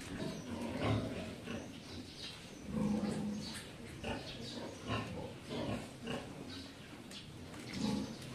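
Nursing sow grunting low every couple of seconds while her piglets suckle, with the piglets' short high squeals in between.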